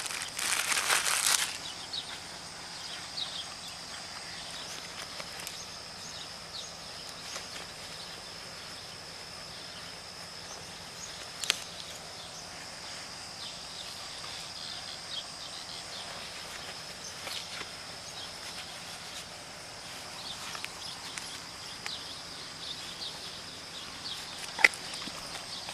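Steady high-pitched outdoor insect drone. It opens with a burst of rustling in the first second or so, and a few sharp clicks follow, one about halfway through and another near the end.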